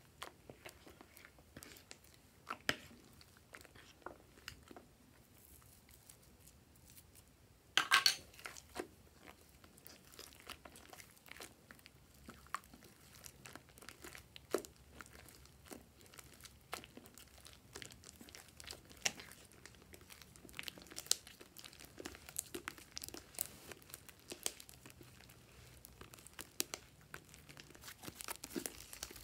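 Slime being mixed, lifted and stretched by hand through foam: scattered small sticky clicks and crackles, with a louder burst of them about eight seconds in.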